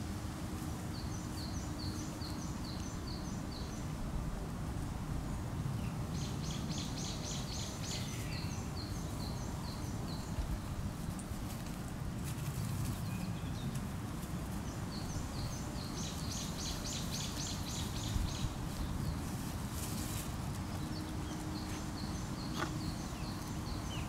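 A songbird singing phrases of quick, evenly repeated high chirps, four times with pauses between, over steady low outdoor background noise.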